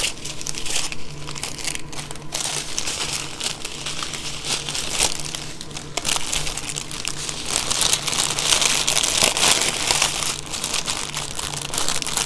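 Small plastic bags of diamond painting drills crinkling as they are handled, busiest and loudest in the second half.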